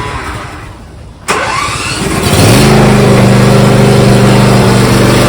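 Vehicle engine being cranked by its starter, catching about two and a half seconds in and then running steadily at idle.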